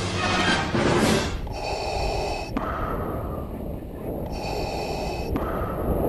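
Wind buffeting the camera's microphone in flight under a paraglider: a steady rough rushing noise.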